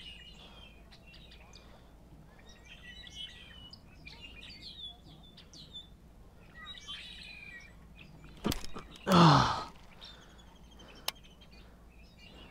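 Small birds chirping and calling on and off. About nine seconds in comes a sharp knock, then a short, loud breathy huff from a person, dropping in pitch.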